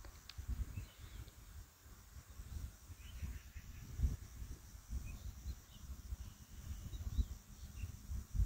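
Faint low knocks and handling sounds as the metal gear-head housing of a cut-off machine is fitted onto its motor body by hand, with faint bird chirps in the background.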